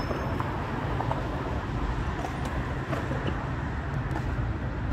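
Steady city street traffic noise, a low rumble with a few faint clicks.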